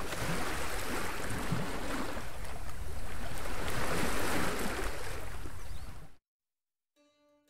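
Sea sound effect of surf and wind, a steady rush that rises and falls gently and cuts off suddenly about six seconds in. Faint plucked-string music begins near the end.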